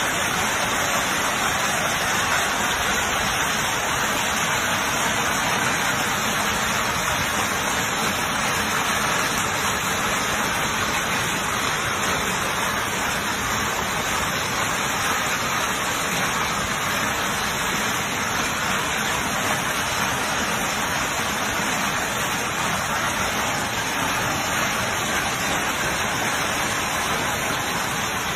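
Heavy rain mixed with hail pouring down steadily in a thunderstorm, a dense, even hiss with no let-up.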